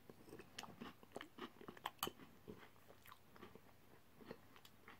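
Faint chewing: soft, irregular wet mouth clicks of someone eating jam roly poly with custard.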